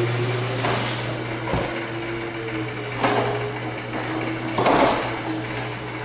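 LiftMaster 8500 jackshaft garage door opener running steadily with a constant hum, raising a heavy wood sectional door up its high-lift tracks. A few short knocks come along the way, about a second and a half apart.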